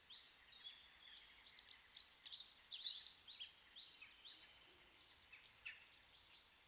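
Several small songbirds chirping and calling together in short, high, quick notes, many of them falling in pitch. The calls overlap most densely about two to three seconds in, over a faint outdoor hiss.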